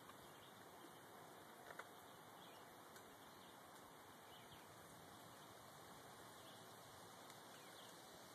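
Near silence: a faint steady hiss of outdoor ambience with a couple of soft clicks.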